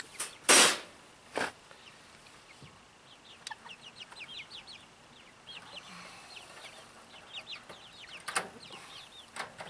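Silkie chickens clucking softly in many short, high, falling notes. Two brief loud noises come in the first second and a half.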